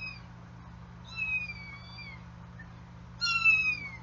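Kitten mewing in protest at being held still for eye and face cleaning: three high-pitched mews, each falling slightly in pitch, the last and loudest near the end.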